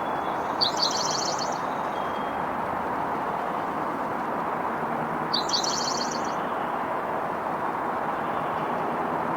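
A small bird's high, rapid chattering call, heard twice about five seconds apart, over the steady rush of distant road traffic.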